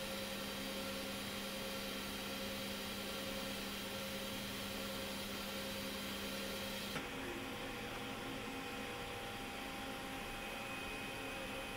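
Steady factory machinery hum and hiss, with several fixed tones. About seven seconds in it changes abruptly to a different, slightly duller steady hum.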